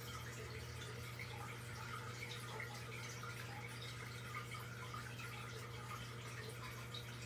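Aquarium water trickling and dripping in small, irregular ticks over a steady low hum.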